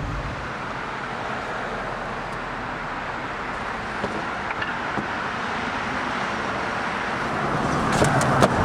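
Street traffic: cars passing on the road below, a steady wash of tyre and engine noise that grows louder near the end.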